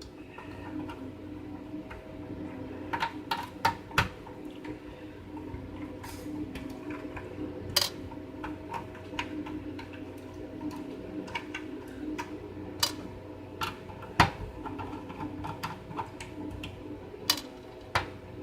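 Scattered, irregular clicks and taps of the opened mechanical keyboard's plastic parts being handled, over a steady low hum.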